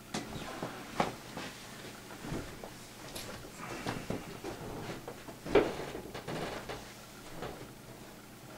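Irregular knocks, thumps and rustling of people moving about a small room: footsteps and things being handled, with the loudest thump a little over halfway through.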